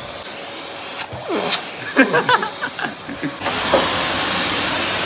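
Vacuum cleaner switched on about three and a half seconds in, then running with a steady rushing noise; a few knocks and handling sounds come before it starts.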